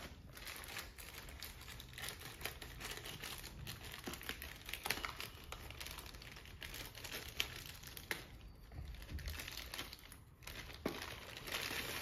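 Plastic courier mailer bag crinkling and rustling as it is cut open with scissors, with many small sharp clicks and snips. It gets a little louder near the end as the package inside is pulled out of the bag.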